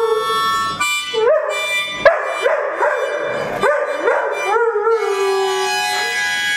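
Harmonica playing sustained chords while a Dalmatian howls along: a wavering howl at the start, a run of short rising yelps in the middle, then another long, slightly falling howl. A sharp click about two seconds in.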